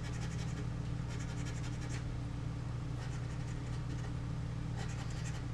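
Scratching the coating off a paper scratch-off lottery ticket: several quick bursts of short scraping strokes with pauses between, over a steady low hum.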